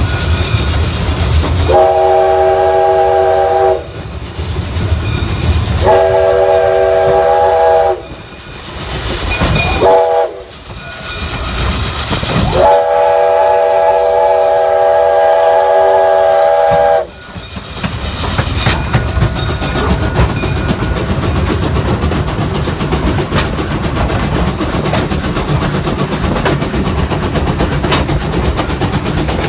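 Steam locomotive whistle sounding a chord of several tones in the grade-crossing pattern: two long blasts, a short one, then a final long blast. The train keeps rolling over the rails after the whistle stops, about seventeen seconds in.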